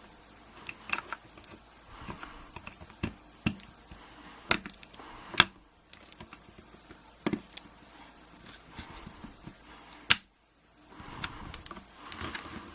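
Small metal clicks and scrapes as pliers work at the retaining clip on a euro cylinder lock's core, with several sharp, louder clicks spread through.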